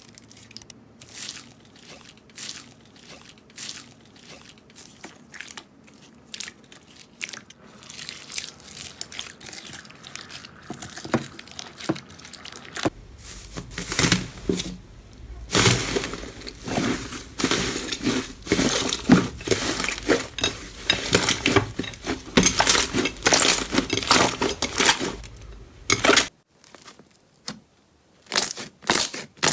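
Slime being squeezed and pressed by hand, giving a dense run of crisp crackles and pops that grows louder and busier about halfway through. It stops abruptly, and after a short pause a new run of crackling starts near the end.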